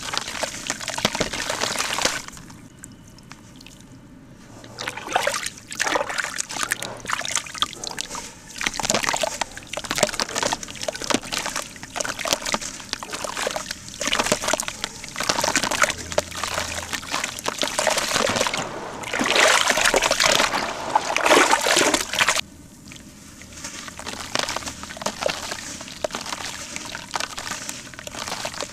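Lumps of dry, reused cement crumbled by hand into a bucket of water: gritty crumbling and crackling, with crumbs and powder splashing and pattering into the water. It comes in uneven bursts, with quieter lulls a couple of seconds in and about three quarters of the way through.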